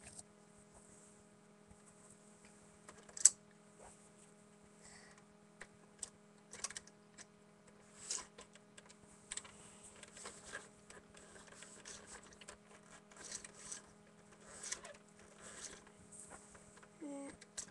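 Small plastic toy figures and playset pieces being handled and moved about: faint, irregular light clicks and scrapes, with one sharp click about three seconds in, over a steady low hum.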